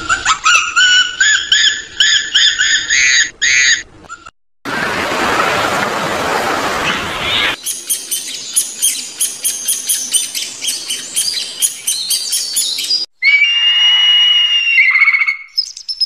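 Birds calling in turn: repeated chirps for the first few seconds, a few seconds of hiss, a fast run of chattering calls, then clear whistled notes near the end.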